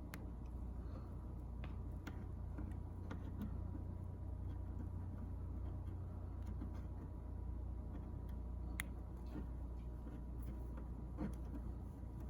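Faint scattered clicks and ticks of CAT6 cable wires and a plastic network jack being handled as the twisted pairs are separated and laid in, over a steady low hum; a sharper click about nine seconds in and another about eleven seconds in.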